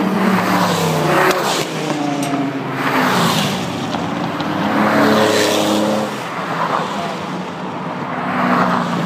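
Porsche 911 GT3 RS's naturally aspirated flat-six running hard at speed, its engine note rising and falling in pitch as it passes and shifts, swelling loudest several times. The uploader believes the exhaust is stock.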